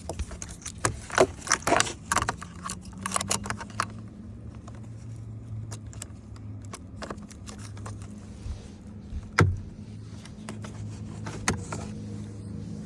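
Clicks, scrapes and light jingling of small hard parts being handled while a dash switch install is set up. The clicks are thickest in the first few seconds, with one sharper knock about nine seconds in, over a steady low hum.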